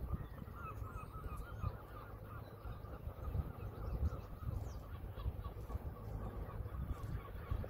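Birds calling with a rapid, wavering chatter that is strongest over the first couple of seconds and then fades, over a steady low rumble.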